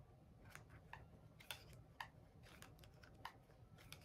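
Near silence: room tone with a scattered handful of faint, short clicks.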